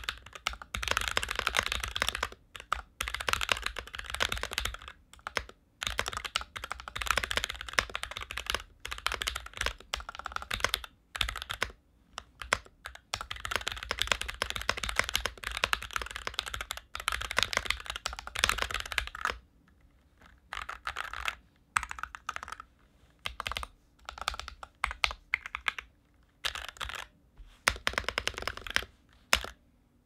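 Typing test on an NK65 Entry Edition mechanical keyboard fitted with Ctrl-T Deep Sea keycaps: fast, steady keystroke clacking, which breaks into shorter bursts with pauses from about two-thirds of the way in.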